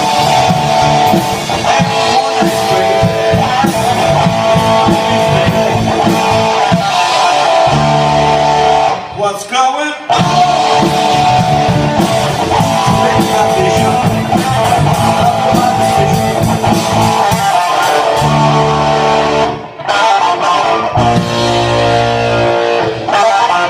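Live band playing an instrumental passage with guitar to the fore, briefly breaking off about nine seconds in and again near twenty seconds.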